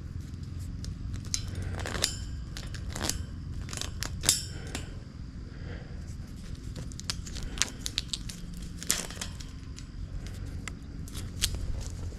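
Irregular clicks, scrapes and rustles from hands working reusable nylon cable ties on a wire cattle panel, a few of the clicks ringing briefly, over a steady low rumble.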